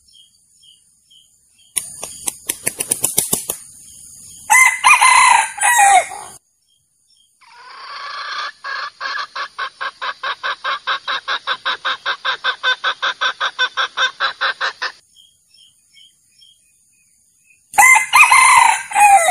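Male junglefowl crowing twice, two short crows well apart. Before the first crow there is a quick run of clicks, and between the two crows a long, even series of fast clucks, about six a second.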